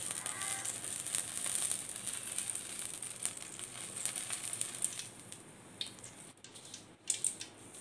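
Coconut oil heating in a wok, sizzling and crackling faintly with many fine pops. It dies down toward the end.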